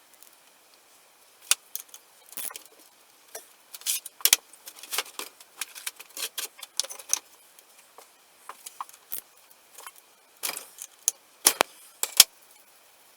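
Metal tools and small metal parts clinking and rattling against each other in irregular clusters of sharp clicks, with a few louder clanks near the end.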